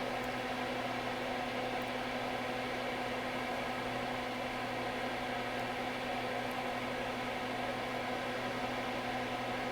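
Electric fan running steadily: an even whir with a low hum.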